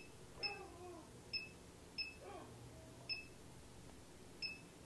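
Optimum G2.1 blender's control panel beeping as its buttons are pressed to pick a program setting: five short, high electronic beeps at uneven intervals.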